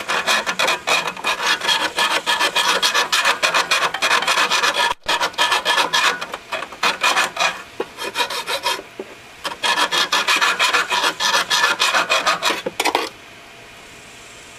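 Hand rasp filing the cutting edge of a Honda HR194 lawnmower blade: rapid back-and-forth scraping strokes, several a second, to sharpen the dull blade. They break off briefly a little past halfway, resume, then stop about a second and a half before the end.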